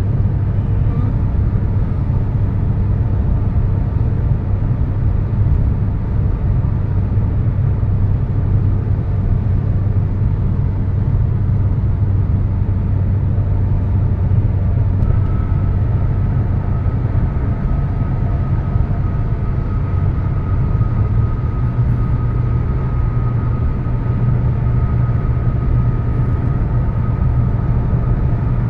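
Steady road noise of a vehicle cruising at highway speed, heard from inside the cabin: a constant low drone of engine and tyres. A faint steady whine joins about halfway through.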